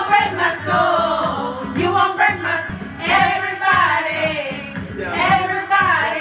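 Karaoke: a woman singing through a handheld microphone over a backing track, her voice sliding up and down on long held notes.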